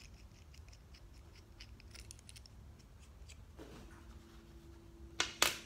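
Small stainless steel bracket parts being handled: faint light ticks, then two sharp clicks close together near the end.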